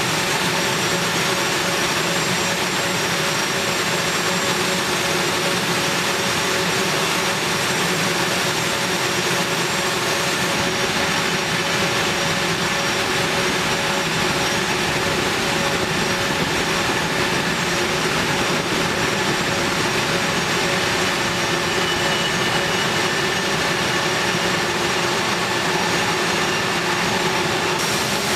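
A-10 Thunderbolt II's twin General Electric TF34 turbofan engines running steadily: a constant jet roar with a high, even whine.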